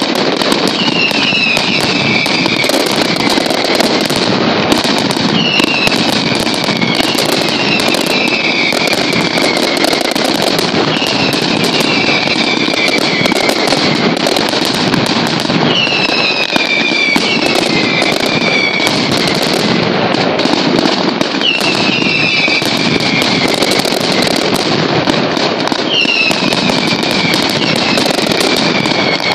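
Pirotecnia Caballer mascletà: strung firecrackers (masclets) going off in a dense, unbroken crackle of rapid reports. Every few seconds whistling fireworks rise above it, several at once, each sliding down in pitch.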